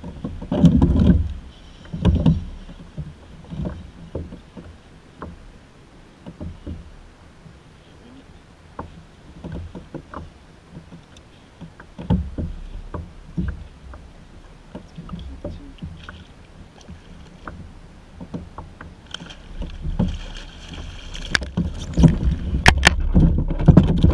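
Water slapping and lapping against a plastic fishing kayak's hull, with scattered low thumps and knocks. A louder, denser stretch of knocking and rustling comes near the end.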